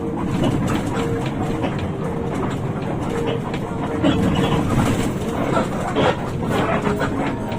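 Running noise of a Hino RK8 rear-engined bus on the road: a steady rumble with scattered rattles and clicks.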